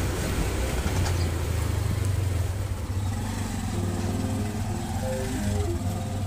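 Steady low engine hum and road noise heard from inside a car's cabin while driving slowly.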